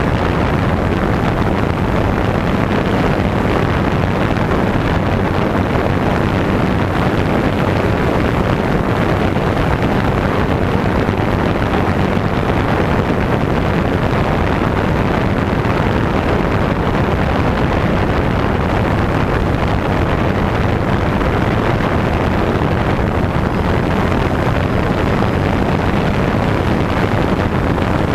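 DJI Phantom 2 quadcopter's motors and propellers whirring steadily, picked up by the GoPro slung beneath it, mixed with wind buffeting the microphone.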